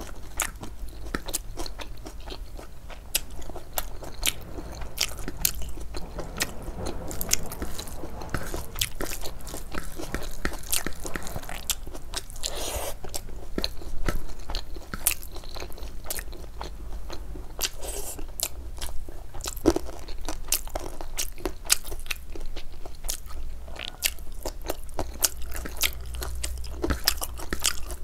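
A person chewing mouthfuls of food, with many sharp, irregular crunches and clicks.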